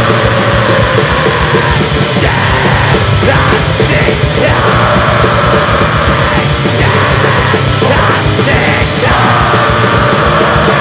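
Blackened thrash/death metal recording: dense distorted guitars over fast drumming with a rapid kick drum, and harsh yelled vocals over it at times.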